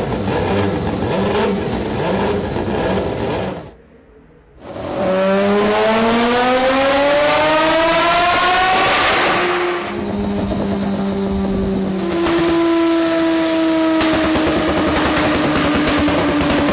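Norton NRV588 twin-rotor Wankel race engine running. It is rough and uneven at first, then after a brief drop about four seconds in it revs up in one long steady climb. From about ten seconds it holds a steady high note that eases slightly lower near the end.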